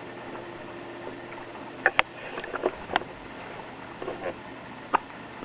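Baby hiccuping: a few short, sharp hiccups, a second or two apart.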